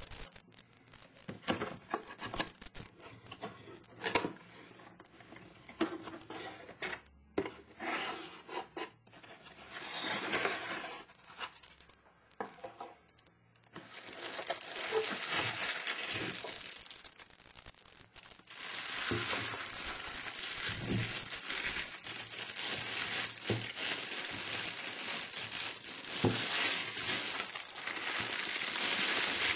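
Cardboard packaging being handled, with scattered short knocks, scrapes and rustles. About halfway through this gives way to a continuous crinkling of the plastic bag wrapped around the camera body as it is handled and pulled out.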